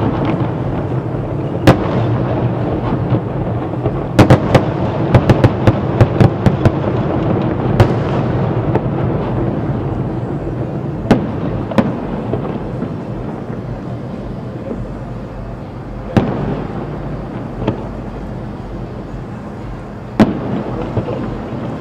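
Aerial firework shells bursting in the distance. There are single sharp bangs, a rapid run of crackling bangs from about four to seven seconds in, then scattered bangs further apart toward the end, all over a continuous rumble.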